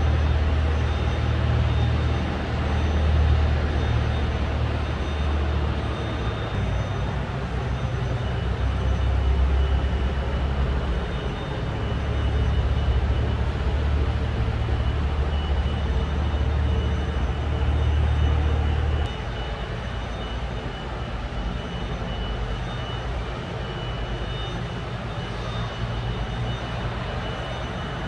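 Steady low rumble and hiss of a large factory hall, with faint steady high-pitched whines. The deepest part of the rumble cuts off suddenly about two-thirds of the way through, leaving a lighter steady drone.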